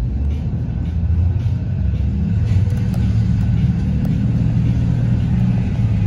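Blue Bird Vision school bus engine running under way, a low rumble heard from inside the bus. It grows louder about a second in and rises in pitch a little later as the bus gathers speed.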